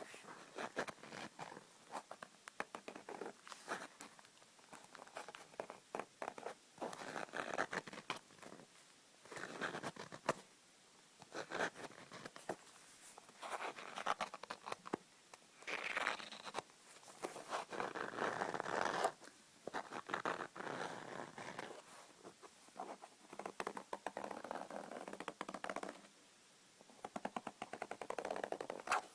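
Hand-made scratching and scraping in irregular bursts, broken by many sharp taps and clicks.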